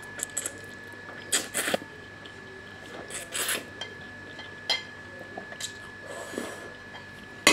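A person slurping boiled instant noodle strands into the mouth in several short, separate slurps.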